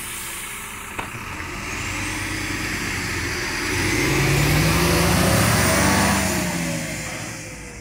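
Irisbus Crossway 12 m bus's diesel engine pulling away from a stop, rising in pitch as it accelerates, loudest about four to six seconds in, then fading as the bus drives off. A single click about a second in.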